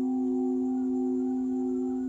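Great bronze Buddhist temple bell (đại hồng chung) ringing on after a strike: a steady low hum with a few higher overtones, gently wavering and slowly fading.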